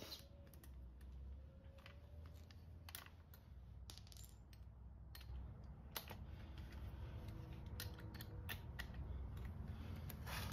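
Scattered light clicks and small metallic knocks from hand tools and bolts being handled on a motorcycle engine's clutch side, over a low steady hum.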